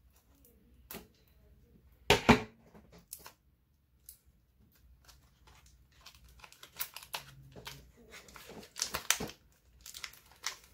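Takara Tomy Random Layer booster packaging being opened by hand: a loud tear about two seconds in, a few small clicks, then a run of crinkling over the last few seconds.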